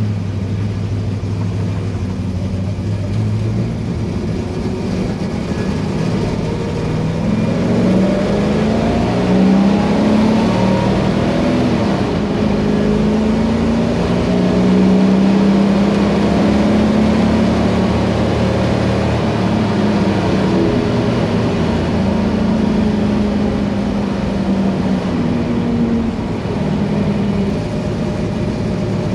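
1963 Corvette's small-block V8 engine running under way: a low steady note at first, then several rises and falls in pitch as it accelerates and shifts, settling into a steadier run.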